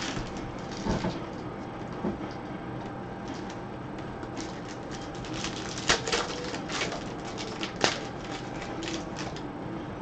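Baseball trading cards being handled and flipped through: papery rustling with a run of small clicks and snaps, two sharper snaps about six and eight seconds in.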